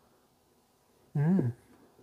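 Near silence, then about a second in a man's short hummed "mm", its pitch rising and then falling.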